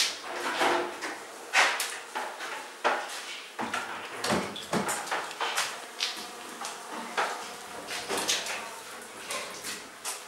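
Honeycomb frames being set into the wire basket of a stainless-steel honey extractor: irregular knocks and clatters of wood and metal.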